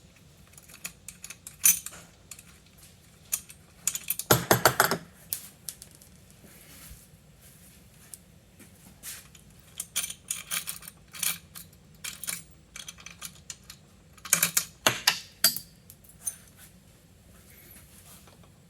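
Small metal hardware (nuts, bolts, washers) clicking and clinking as bike parts are taken off by hand. There are two louder bursts of metallic clatter, about four seconds in and again around fifteen seconds, from a dropped nut or bolt bouncing.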